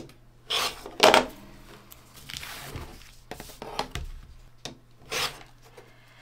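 Rotary cutter slicing through fabric with foundation paper attached along an acrylic ruler, making several short rasping cuts. The ruler slides and knocks on the cutting mat between them, with the loudest sound about a second in.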